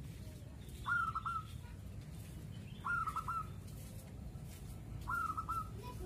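Zebra dove (perkutut) cooing: three short phrases about two seconds apart, each a longer first note followed by two quick notes.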